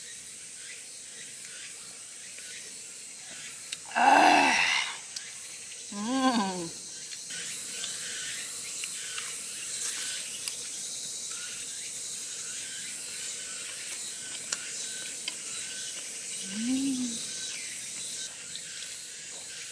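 A woman's wordless vocal reactions while drinking and eating: a loud 'ah' about four seconds in, an 'mm' with rising and falling pitch two seconds later, and a short hum near the end, over a steady high hiss.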